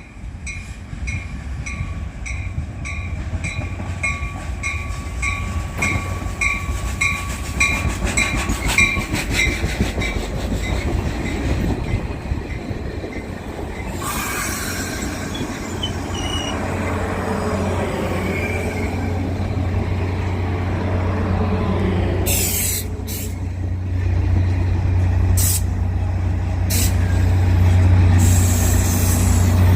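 Caltrain commuter train arriving: a bell rings about twice a second for the first ten seconds, then the train pulls in with a rising rush of wheel and brake noise from about fourteen seconds in. Several short hisses of air come in the second half, and a low steady hum grows louder toward the end as the train comes to a stand.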